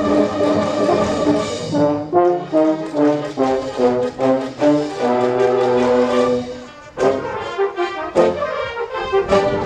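A brass band playing a tune outdoors: a melody of short separate notes over sustained low notes, dipping briefly about two-thirds through before the full band comes back in loudly.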